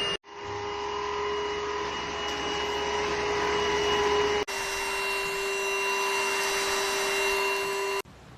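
Dibea H008 cordless stick vacuum cleaner running with a steady high whine over a rushing airflow. The sound drops out suddenly just after the start and again about halfway, picking straight back up each time, and stops abruptly near the end.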